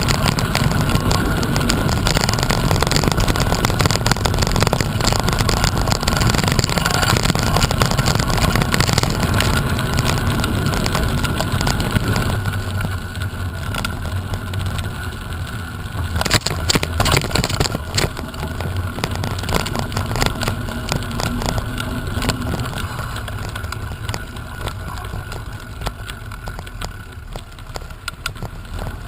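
Wind rumbling on the microphone over steady travel noise. The rumble drops off about twelve seconds in, leaving a quieter hiss, and a short run of clicks follows a few seconds later.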